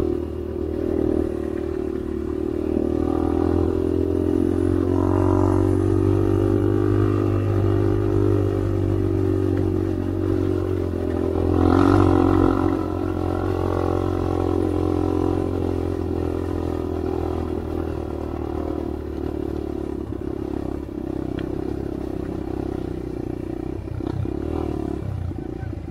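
Dirt bike engine running steadily under way at a fairly even pitch. It swells briefly about twelve seconds in and eases off a little near the end.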